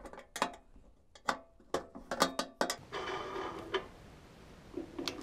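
Sharp clicks and knocks of a hand tool working on the Harbor Freight cement mixer's plastic drive housing while it is being taken apart, with a short scraping sound about three seconds in and one more click near the end.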